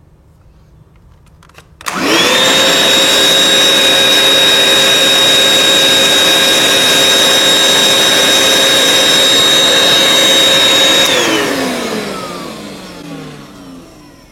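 Black & Decker vacuum cleaner switched on: its motor spins up quickly to a loud, steady high whine with a rush of air. After about nine seconds it is switched off, and the whine falls in pitch as the motor winds down.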